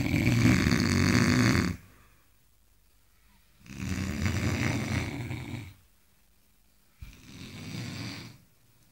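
A sleeping man snoring: three long, rough snores of about two seconds each, separated by near-silent pauses. The first is already under way at the start, and the third starts abruptly and is softer.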